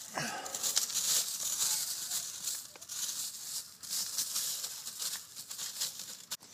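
Footsteps crunching and crackling over storm debris, with many short irregular clicks over a steady high hiss.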